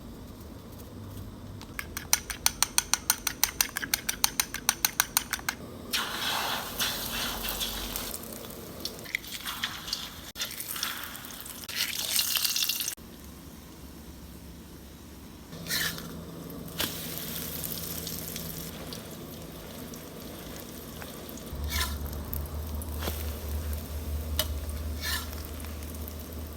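Eggs being beaten in a bowl with quick, evenly spaced clinking strokes, about seven a second, for a few seconds. Then the egg mixture sizzles in hot oil in stretches of frying hiss, with a few utensil clicks near the end.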